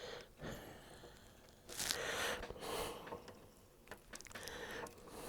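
Faint scraping and rustling in several short bursts as a coax stripping tool is turned around LMR-400 coaxial cable to finish cutting back the jacket and braid.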